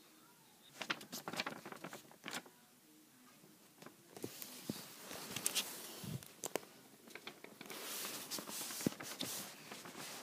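Paper rustling and handling noise as a paper cutout is moved about close to the recording phone, with scattered small clicks and taps; one short cluster early and a longer stretch of rustling from about four seconds in.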